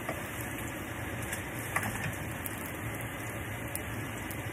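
Cornbread-stuffed hushpuppies deep-frying in hot oil in a cast-iron skillet: a steady sizzle with scattered small pops.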